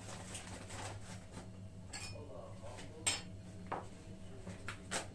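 A few scattered clinks and knocks of kitchen dishes and utensils being handled, the sharpest about three seconds in, over a steady low hum.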